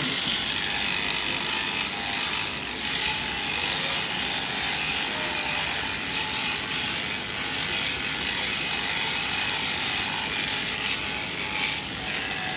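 Powered sheep-shearing handpiece running steadily as its cutter clips through a sheep's fleece: a continuous mechanical buzz with a hissy edge.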